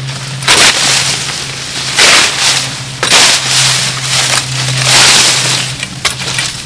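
Dry sugar cane leaves crackling and rustling as they are stripped off the stalks, in several rough strokes.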